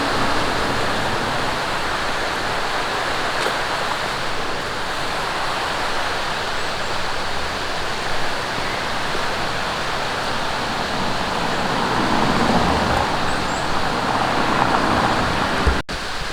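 Mountain stream rushing steadily, an even wash of water noise that breaks off for an instant near the end.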